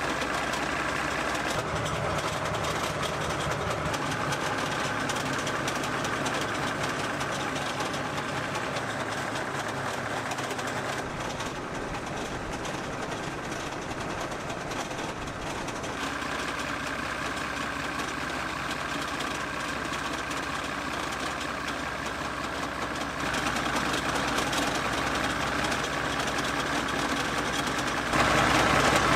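Type 69-II tank's V12 diesel engine idling steadily, with a few abrupt changes in tone and level; it gets louder near the end.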